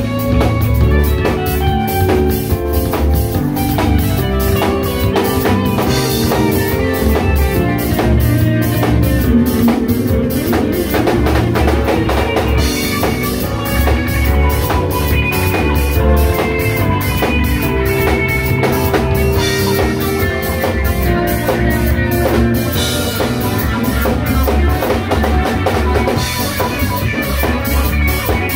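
Live jazz quartet playing a jazz standard: electric guitar with electric bass, keyboard and drum kit, the drums keeping a steady beat throughout.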